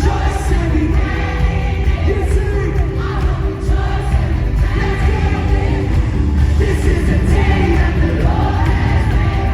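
Live worship music: a band with heavy bass and many voices singing together.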